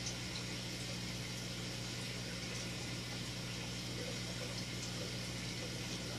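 Steady hum of an aquarium pump with water bubbling and trickling over it, dotted with small ticks.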